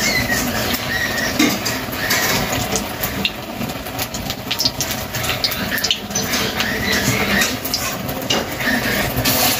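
Gram-flour batter being worked by hand in a steel bowl, with light clinks of bangles against the bowl. Behind it runs the steady noise and scattered crackle of a wood fire burning in a clay stove under a pan of heating oil.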